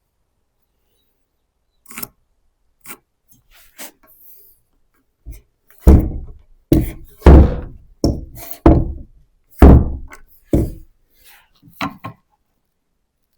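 An irregular series of about a dozen heavy thuds and knocks. They start light and become loud, deep blows in the middle, then thin out again.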